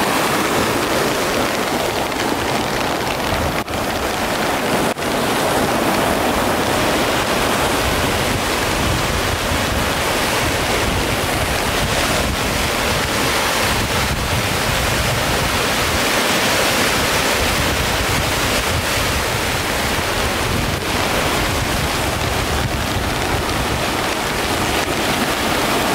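Swollen, muddy river in flood after heavy rain, rushing steadily over riffles in a continuous wash of turbulent water. Wind buffets the microphone with a gusty low rumble.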